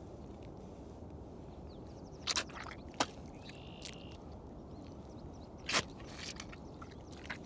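Baffin rubber boots squelching and sucking in wet mud as a foot is lifted and set down, a few separate squelches about two, three and six seconds in.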